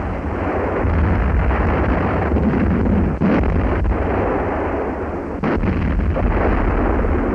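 Heavy artillery fire and shell explosions from German railway guns, heard as a dense continuous rumble. A few sharper blasts stand out about three and about five and a half seconds in.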